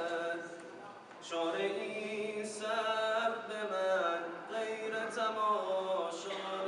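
Group of male voices chanting a tawashih (Islamic devotional chant) a cappella, with long held, ornamented notes. The voices die away about a second in and start a new phrase together shortly after.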